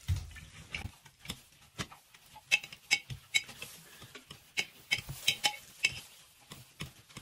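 A hand tool mashing watermelon chunks in a container to squeeze out the juice: irregular sharp clinks and knocks, some ringing briefly, with a low thud at the start.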